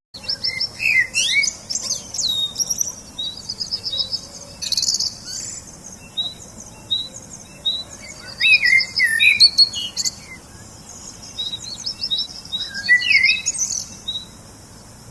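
Several songbirds chirping and trilling together, one repeating a short high note about twice a second through much of the stretch.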